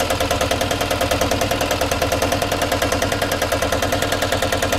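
Single-cylinder diesel engine of a Piaggio Ape Classic 400 idling, heard close up in the open engine bay: a steady run of pulses, about ten a second.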